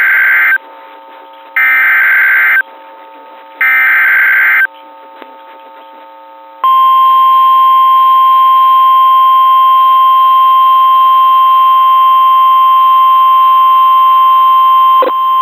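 Emergency Alert System SAME header sent three times as short bursts of digital data screech, about a second each with a second's pause between, then the steady 1050 Hz NOAA Weather Radio warning alarm tone held for about eight seconds, announcing a new severe thunderstorm warning.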